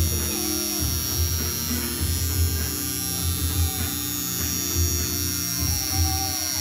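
Electric tattoo machine buzzing steadily while it inks the skin.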